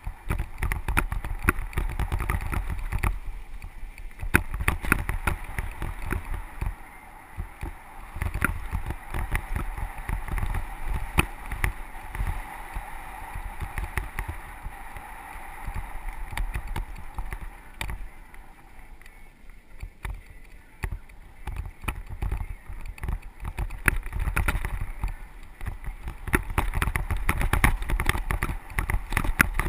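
Mountain bike ridden along a dirt trail, heard from a camera mounted on the bike: wind buffeting the microphone as a low rumble, with tyres crunching over gravel and the bike rattling in a dense run of clicks.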